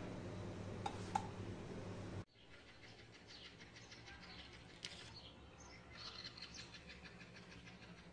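A paratha sizzling in a hot pan, with two light clicks about a second in, cuts off suddenly about two seconds in. After that comes faint chirping of pet budgies.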